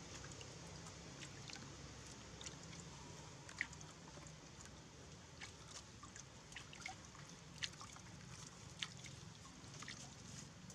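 Long-tailed macaques lapping and sipping water from a large ceramic jar. Faint, irregular small wet clicks and little splashes sound over a steady low hiss.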